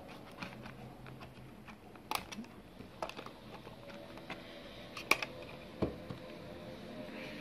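Scattered light plastic clicks and taps from an ANENG AN8009 digital multimeter's case, about five or six, as it is handled and turned over and its fold-out tilt stand is lifted.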